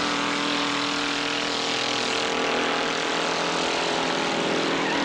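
Engines of several old derby cars running at once, a steady drone with no clear crash in it.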